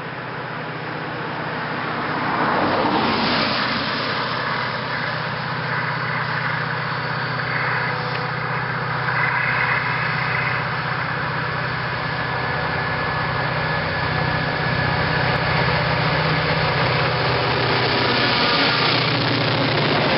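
NOHAB-built class MZ diesel locomotive's EMD two-stroke diesel engine working at full throttle, hauling a heavy timber train up a grade. Its steady drone grows louder as it approaches and passes. A road vehicle passes close by, with a falling pitch, about two seconds in.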